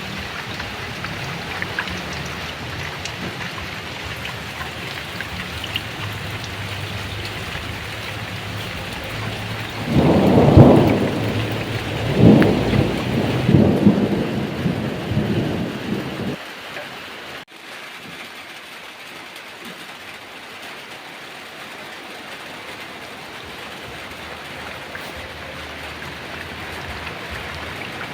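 Heavy rain pouring steadily, with a clap of thunder about ten seconds in that rolls on in several rumbling swells for about six seconds before dying away.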